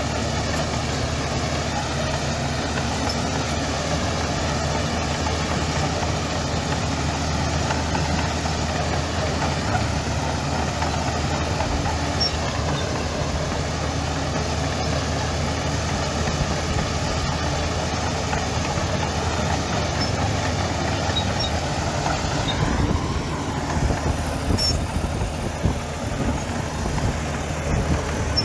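Heavy diesel engine of earthmoving machinery running steadily; about 22 seconds in the sound changes and becomes less even.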